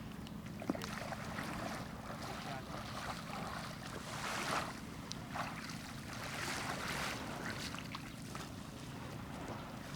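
Small fishing boat's engine running steadily at sea, with water rushing and splashing against the hull in swells and wind on the microphone.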